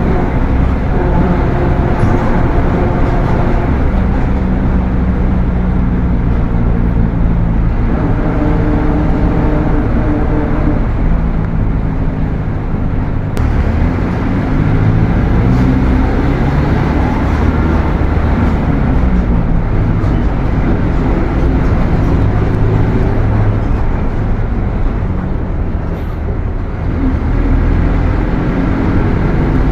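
Mercedes-Benz OF 1721 bus's diesel engine and transmission running under way. The engine note rises and falls several times as the bus accelerates and changes gear, over a loud transmission growl.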